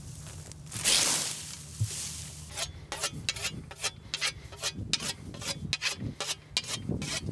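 A grain cradle's scythe blade swishes once through standing wheat about a second in. From about two and a half seconds, a whetstone is stroked quickly along the cradle's steel blade, about five short scraping strokes a second, touching up the cutting edge.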